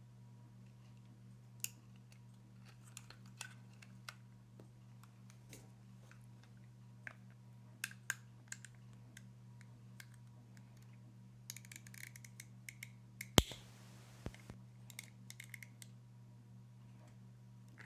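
Small plastic and metal parts of an RC car chassis being handled and fitted by hand: scattered light clicks and taps, with one sharp, much louder click about thirteen seconds in followed by a brief rustle. A steady low hum runs underneath.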